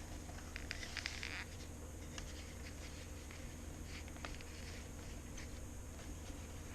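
Light clicks and scratchy rustling from close handling of a vintage Newman Japanese mechanical pencil, busiest about a second in and again around four seconds, over a steady low hum.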